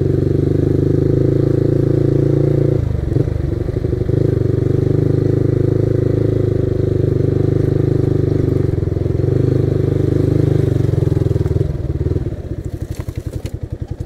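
Yamaha R15's single-cylinder engine running steadily as the motorcycle is ridden, with a brief dip about three seconds in. Near the end the engine falls to an idle with distinct, regular firing pulses as the bike stops.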